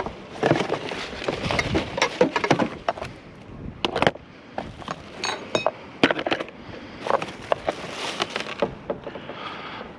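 Rummaging through a pile of discarded junk: objects knocking, clinking and rustling as they are handled and moved, with scattered sharp clicks and a brief high ringing note about five seconds in.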